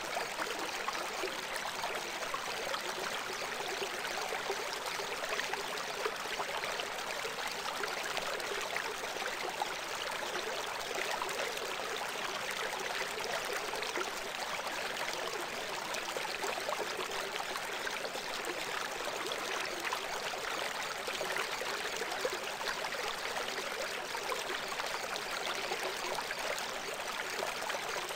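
Steady rushing of running water like a stream, even and unchanging, with no deep rumble beneath it. It is the bed of sound that carries a subliminal track's hidden messages.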